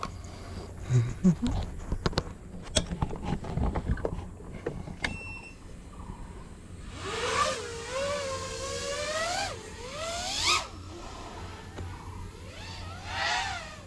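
A 5-inch GEPRC Mark5 FPV quadcopter's motors and propellers whining, the pitch gliding down and up with the throttle for about three and a half seconds from halfway in, then rising again briefly near the end. Before that, a scatter of sharp clicks and knocks.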